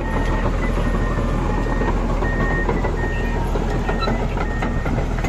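Heavy mining machinery running with a steady low engine rumble, while a backup alarm sounds repeated high beeps.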